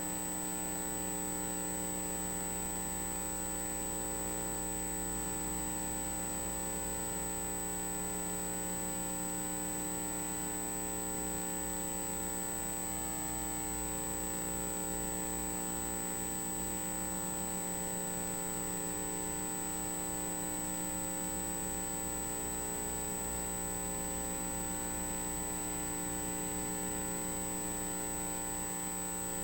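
Steady electrical mains hum from ultrasound scanning equipment, with a thin high-pitched whine over it and no change or beat throughout.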